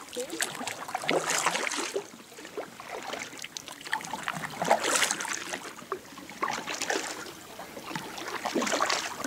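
Kayak paddle strokes through calm lake water: an uneven series of swishes, each with water trickling and dripping off the blade.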